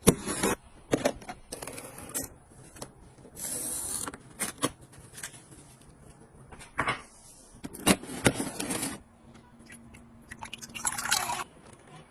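Close-up handling of small household items: irregular clicks, light knocks, and short scraping and rustling passes. A faint steady hum comes in near the end.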